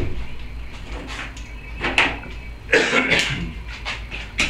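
A socket wrench working the 8 mm bolts out of the sheet-metal cover of a Briggs and Stratton overhead-valve small engine. There is a sharp click at the start, then short metallic rattling and scraping bursts, the longest about three seconds in.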